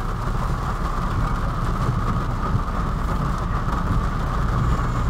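Steady rumble of a car driving in heavy rain, heard from inside the cabin, with an even hiss over it.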